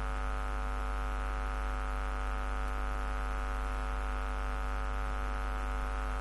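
Steady electrical mains hum and buzz: an unchanging drone made of many evenly spaced tones, with a strong deep hum beneath.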